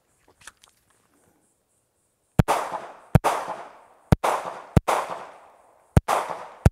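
Kahr X9 9mm pistol fired six times in three quick pairs, two shots on each of three targets, each pair about two-thirds of a second apart, with a short ringing echo trailing every shot.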